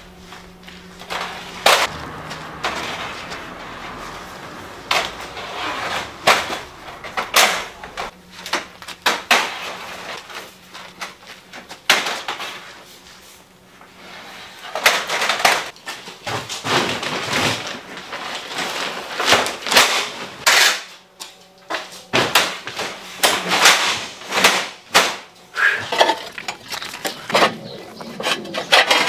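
Roof tiles clinking and clattering as they are lifted, carried and stacked against each other: a run of sharp knocks at irregular intervals, with short lulls about halfway through and again a few seconds later.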